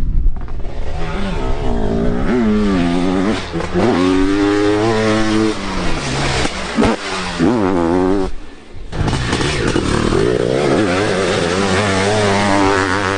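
Off-road motorcycle engines revving hard, pitch rising and falling as the bikes accelerate and shift through the track's turns. The sound drops out briefly about eight seconds in, then the revving picks up again.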